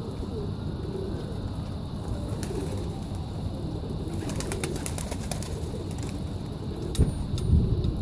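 Domestic pigeons cooing softly over a steady low rumble, with scattered light clicks in the middle and a louder knock and thud near the end.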